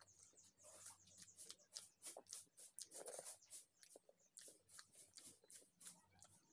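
Faint eating by hand: quick, irregular soft clicks and wet squelches of fingers mixing rice and curry on a metal plate, along with chewing.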